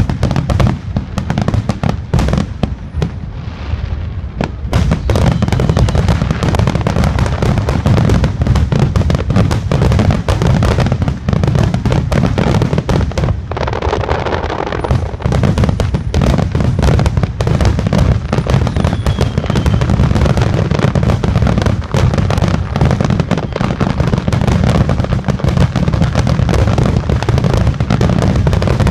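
Fireworks display: aerial shells bursting in rapid succession, a dense run of overlapping bangs and crackle, easing briefly about three seconds in before building up again.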